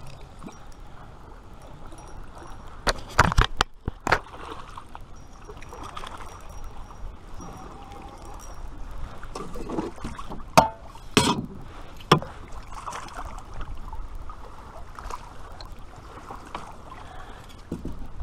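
A canoe drifting on a river, water moving along the hull, with a few sharp knocks of gear against the boat, the loudest about three seconds in and again around ten to twelve seconds in.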